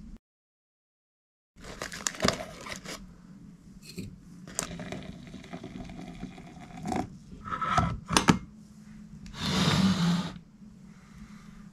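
After a second and a half of dead silence, small objects being handled in a small room: irregular scrapes, clicks and knocks, with a longer noisy hiss about ten seconds in.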